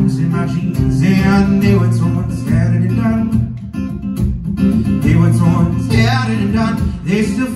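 Acoustic guitar strummed steadily, with a man singing short phrases over it about a second in and again near the end.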